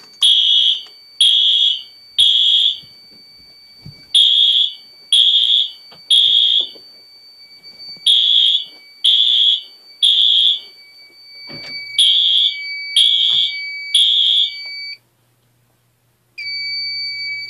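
Fire alarm system sounders going off loud in the temporal-three evacuation pattern: groups of three high beeps a second apart, four groups in all, over a steady high tone. The sounders stop suddenly about 15 seconds in, and a steady high tone starts again a second and a half later.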